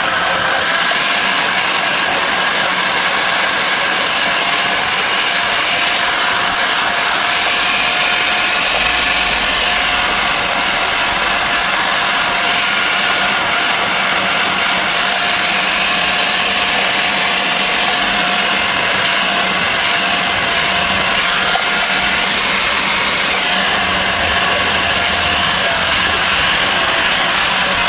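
A motor-driven tool running steadily with a whine that wavers slightly in pitch, without any hammer blows.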